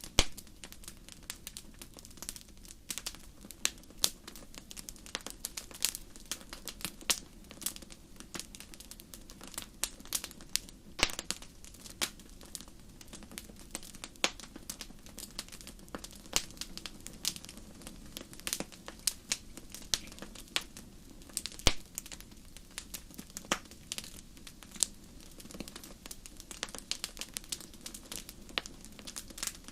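Fire crackling: irregular sharp pops and snaps, several a second, over a faint low steady rush.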